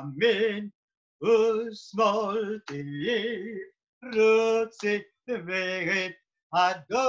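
A man singing a Hebrew prayer solo and unaccompanied, in a cantorial style with a wavering vibrato, in short phrases with brief pauses between them.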